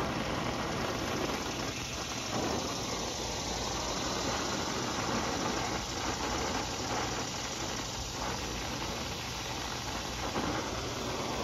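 Brazing torch flame hissing steadily as it is held on a copper tube joint of a condenser coil.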